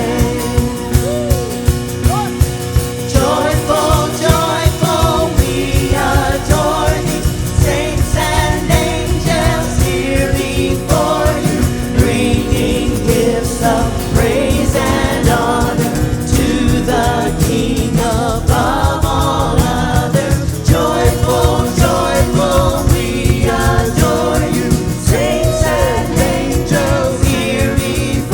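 Worship band and singers performing a gospel-style Christian song, voices over a steady beat.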